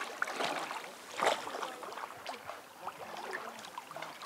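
Water splashing and lapping around a swimmer moving through a lake, in small irregular splashes with a louder one about a second in.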